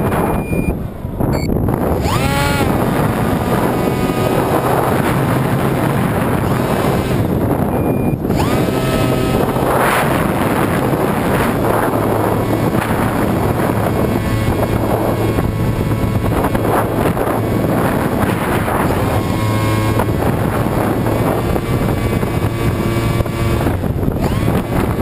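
Electric motor and propeller of a foam RC plane heard from its onboard camera, its whine rising and falling in pitch several times as the throttle changes, with wind rushing over the microphone.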